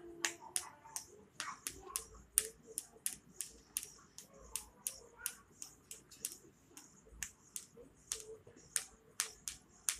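A run of sharp, irregular clicks or taps, about three a second.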